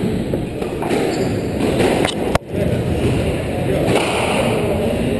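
Steady murmur of spectators talking in a squash hall, with a few knocks and a sharp click about two and a half seconds in.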